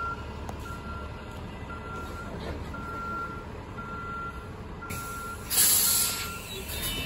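Backup alarm of an articulated Muni bus beeping about once a second, over a steady low rumble. About five and a half seconds in comes a loud burst of air-brake hiss, and the beeping stops soon after.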